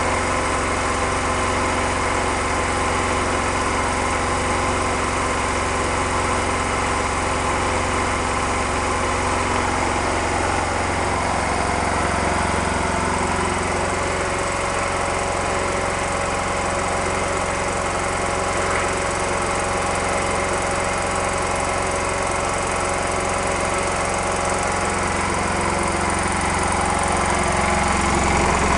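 RIX SA6 three-stage, oil-free scuba compressor running steadily on its 5 hp single-phase electric motor. The sound starts and cuts off suddenly.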